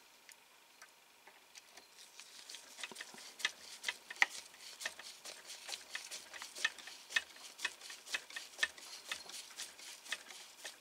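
Small hand screwdriver turning a tiny screw into the side partition of a scale-model car, giving a run of light, irregular clicks and ticks a few times a second that start about two seconds in.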